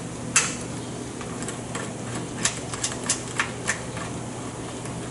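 Irregular sharp clicks and taps of hardware being handled and fitted, about a dozen over a few seconds with the strongest near the start: limit switches being mounted on a pneumatic trainer panel. A steady low hum runs underneath.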